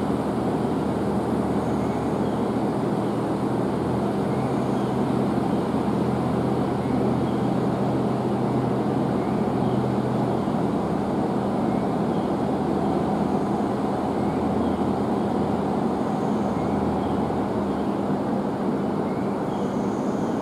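JR East GV-E400 series diesel-electric railcar with its diesel engine running, a steady low hum that holds an even pitch and level as the railcar pulls slowly away from the platform.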